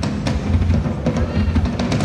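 Drum kit solo with Paiste cymbals: a dense run of fast strokes across toms, snare and bass drum, with cymbal hits cutting through.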